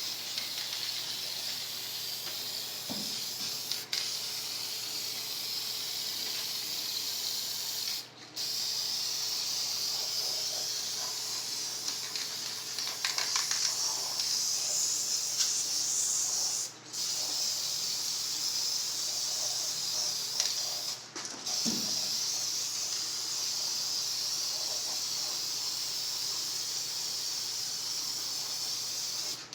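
Spray paint hissing steadily from a spray can as paint goes onto a truck bed, broken by three short pauses in the spraying.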